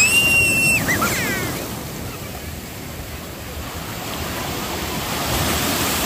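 Ocean surf rushing and washing in steadily, easing off in the middle and building again. At the start a child lets out a high-pitched squeal lasting under a second, followed by a brief laugh about a second in.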